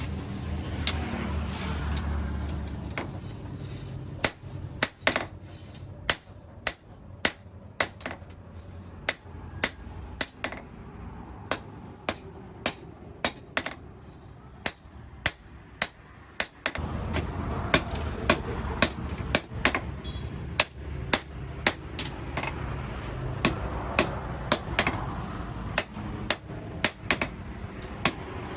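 Steel being hand-forged with a hammer on an anvil: sharp ringing blows at about two a second. A low steady hum runs underneath, drops out for a long stretch in the middle and comes back about two-thirds of the way through.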